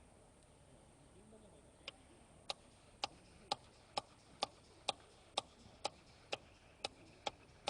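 Sharp, evenly spaced ticks, about two a second, beginning about two seconds in.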